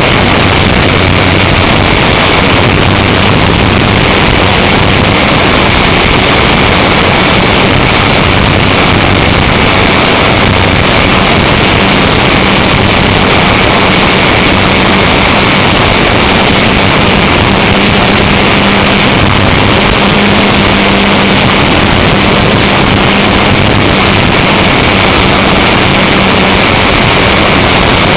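Electric RC model airplane's E-max 822 motor and 9x5 propeller running steadily in flight, heard from a camera on the plane itself. There is a loud, constant rush of wind and prop noise, a steady whine on top, and a low hum that shifts higher partway through.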